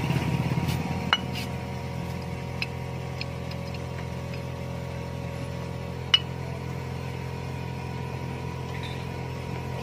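A few sharp metallic clinks from the steel brake shoes, their return springs and pliers being handled: one about a second in, another at two and a half seconds, and the loudest about six seconds in. A steady low hum runs underneath.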